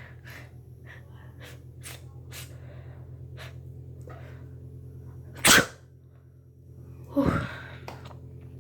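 A woman sneezing: one sharp, loud sneeze about five and a half seconds in, then a second, shorter burst of breath and voice about two seconds later. Faint short breaths come before the sneeze.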